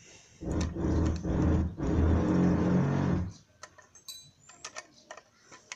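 A nut being unscrewed from the bolt of a kick scooter's handlebar clamp: a loud, rasping mechanical grinding in several bursts that stops a little past halfway, followed by light clicks of handling.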